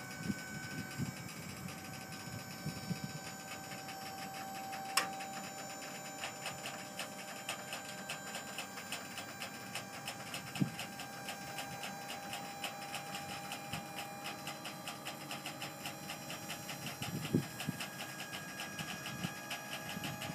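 Dump trailer's electric-hydraulic pump running steadily as the bed tips up and the load of leaves slides out: a steady whine with fast, even ticking. A sharp click about five seconds in.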